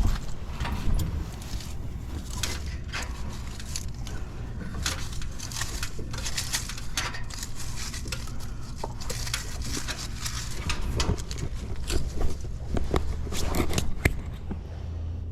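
Irregular crackling, scraping and clicking handling noises over a steady low machine hum.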